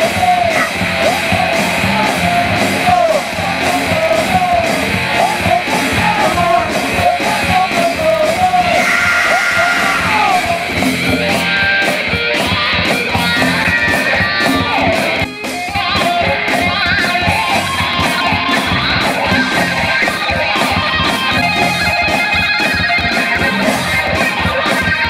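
Live rock band playing a mostly instrumental passage on electric guitars, bass and drums, with a brief drop-out about fifteen seconds in.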